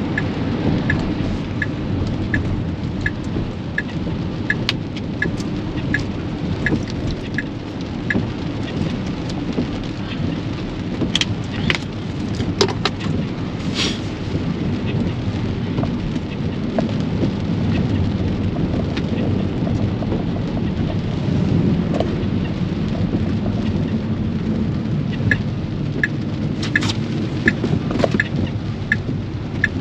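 Heavy rain drumming on a moving Tesla Model X's roof and windshield, heard from inside the cabin with a low wet-road rumble. The turn signal ticks steadily, about one click every 0.7 s, for the first several seconds, stops, and starts ticking again near the end.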